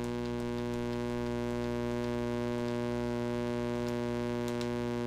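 Steady electrical buzzing hum made of several even tones, heard while the radio is keyed down in CW mode, sending a constant carrier to tune a magnetic loop antenna. A few faint clicks sound over it.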